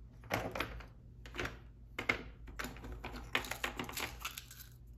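Thread spools clicking and knocking as they are handled, pulled from a plastic basket and set down on a table: a few separate knocks, then a quicker run of small clicks in the second half.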